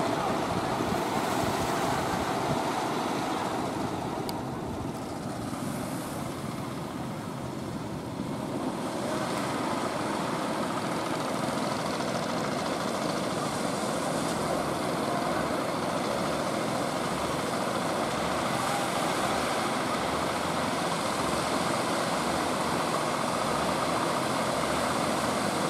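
Steady rushing noise of surf and wind, growing softer and duller for a few seconds near the start before rising again.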